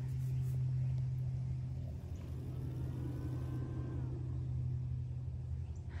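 A steady low hum under a faint hiss, with a faint tone that rises and then falls about two to four seconds in.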